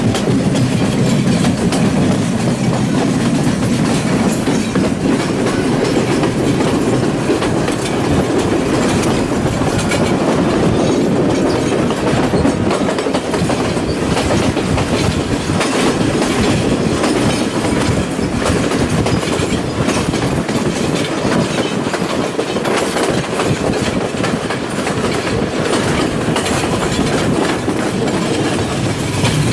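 Passenger train running steadily, heard from aboard a carriage: a continuous rumble with the wheels clicking over the rail joints.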